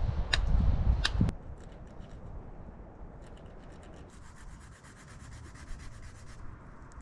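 A few knocks and handling noise, then a chicken bone being scraped and rubbed against stone in quick, even strokes to thin it down for a primitive fish hook.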